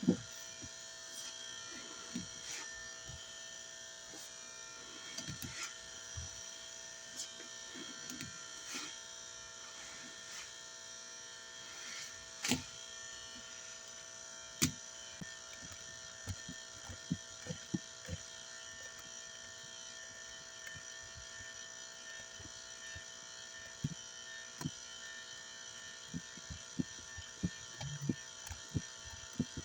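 Steady electric buzz of a fluorescent light fixture, with scattered wet squelches and sharp clicks as a sponge loaded with cleanser paste and dish soap is squeezed and the product scraped up.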